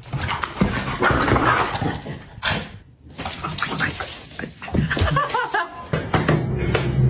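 A pet animal's sounds: breathy noise early, then a few short curved whining calls past the middle.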